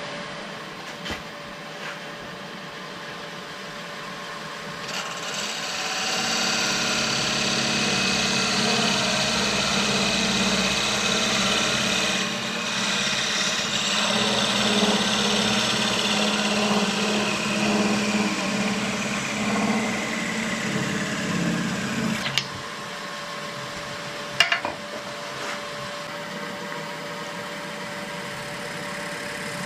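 Wood lathe running with a steady motor hum while a tool works a spinning wooden wine-stopper blank: a rasping, rubbing noise builds from about five seconds in and eases off about two-thirds through. Two sharp knocks come near the end.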